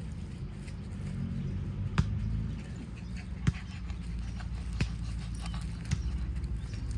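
Four sharp slaps or smacks, spaced a little over a second apart, the first two the loudest, over a steady low rumble.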